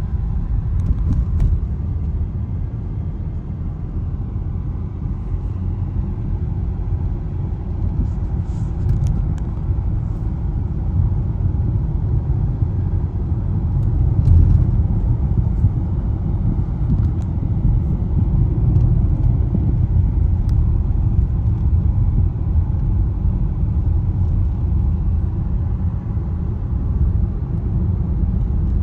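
Road noise heard inside a moving car: a steady low rumble of tyres and engine on a rough construction-zone road, with a few faint clicks.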